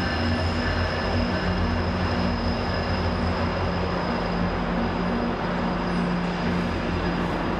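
Train running on rails: a steady noise with a low hum and a thin high whine held throughout.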